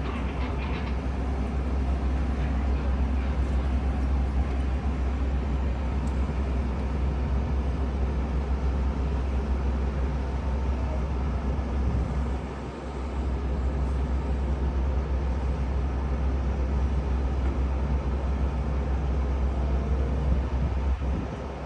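Steady low rumble of a Metra commuter train, with a brief dip about twelve seconds in.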